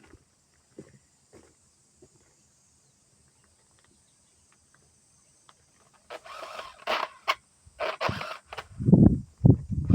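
Kubota KC2750Hb brush cutter engine's recoil starter pulled several times in quick succession from about six seconds in, each pull giving a rattling noise, the abnormal rattle and catching of a faulty starter; the engine does not start.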